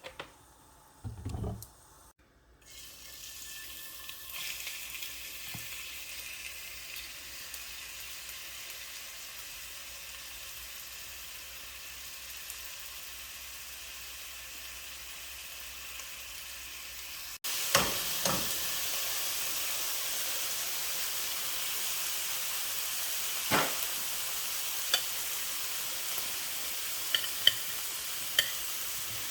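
Food frying in hot oil in a pan, a steady sizzle that starts a couple of seconds in and gets louder about two-thirds of the way through. A low thump comes about a second in, and a few sharp knocks of a utensil against the pan come in the last third.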